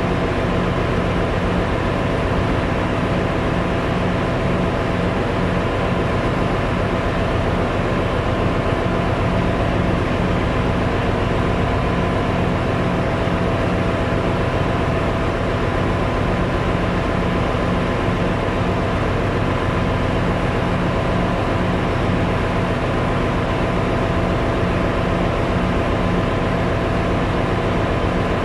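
Ship's engine-room machinery running steadily: a loud, even drone with several steady hums through it. The main engine itself is stopped with its crankcase doors open, so the noise comes from other running plant such as generators and ventilation.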